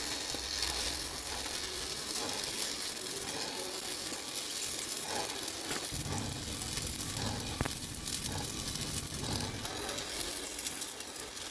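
Stick (shielded metal arc) welding on a steel truck rim: the electrode's arc crackles steadily as a bead is laid joining the wheel's centre disc to the rim.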